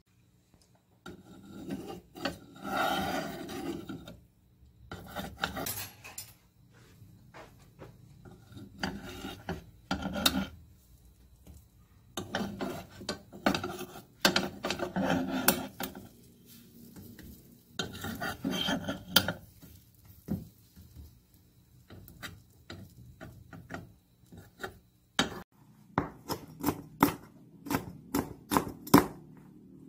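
A utensil scraping and rubbing against a nonstick frying pan in bursts as pancakes are turned. Near the end, a chef's knife chops almonds on a wooden cutting board in quick, sharp knocks.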